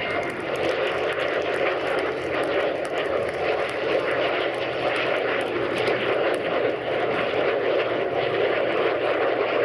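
Steady engine noise from an F-22 Raptor and a P-51 Mustang flying past together in close formation, an even rushing drone without breaks.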